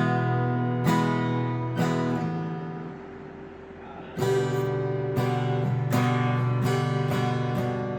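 PRS SE Angelus A60E acoustic guitar, strung with 12-53 strings, strummed in chords about once a second. Around two seconds in, a chord is left to ring and fade; then steady strumming resumes about four seconds in.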